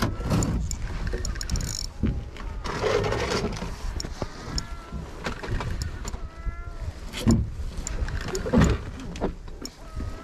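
Wind rumbling on the microphone in a small open boat, with scattered knocks and clicks from a spinning reel and rod being handled while a fish is played. A few short rising-and-falling calls sound around the middle.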